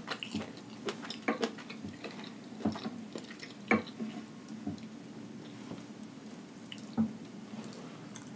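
Close-miked wet chewing and mouth clicks from someone eating with lips closed, with soft squelches of a sausage being dipped in cheese sauce. The sharp clicks come one or two a second, with the strongest a little past the middle and at about seven seconds.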